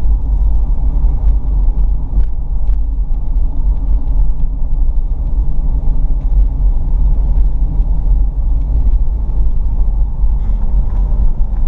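Steady low rumble of a moving car heard from inside the cabin: road, tyre and engine noise.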